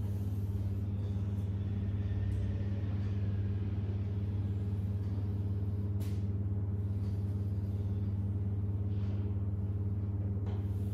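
Steady low electrical hum with a ladder of overtones, and a few faint scrapes of chalk on a blackboard.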